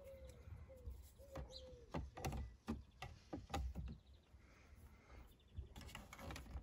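Small plastic clicks and taps as scissors prise the hazard-switch panel out of a 1993 Honda Civic's plastic dashboard. In the first couple of seconds a bird's short falling call repeats several times.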